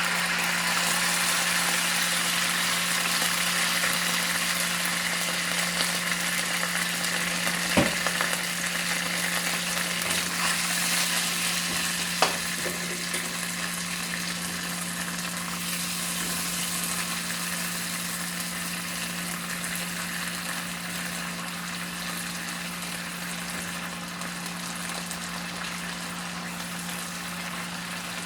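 Food sizzling in hot oil in a frying pan: a dense steady hiss that slowly eases, over a steady low hum. Two sharp clicks cut through, about eight and twelve seconds in.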